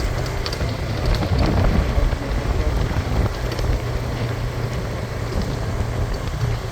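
A motor vehicle's engine running steadily with a low hum, under a constant rush of road and wind noise.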